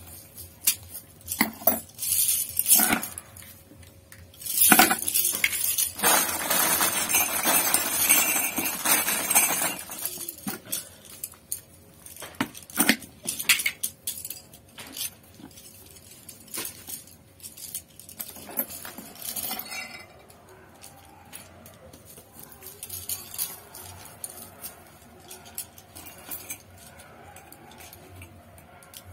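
Small metal brush ferrules and hand tools clinking and clicking against each other and the wooden workbench as flat brushes are put together by hand. A louder stretch of continuous rustling, scraping noise runs from about five to ten seconds in, and the clicks thin out over the last several seconds.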